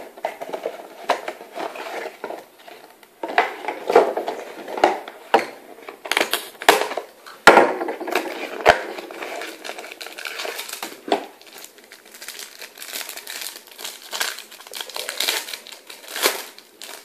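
Trading-card packaging being handled and a 2011 Panini Absolute Football pack opened by hand: the wrapper crinkles with many irregular crackles and clicks, and the sharpest snap comes about seven and a half seconds in.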